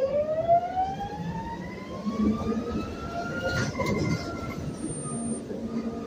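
Proterra Catalyst E2 electric bus's traction motor whining as the bus accelerates, the whine rising steadily in pitch. About three and a half seconds in the pitch dips and then climbs again as the Eaton two-speed transmission changes gear. Road rumble runs underneath.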